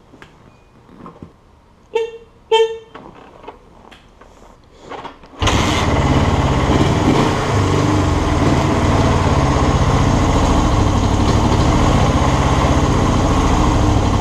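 1975 Honda CL360's twin-cylinder engine catching suddenly about five seconds in and running steadily, on freshly rebuilt carburettors with the pod air filters just tightened. Before it starts there are a few clicks and two short, loud beeps about two seconds in.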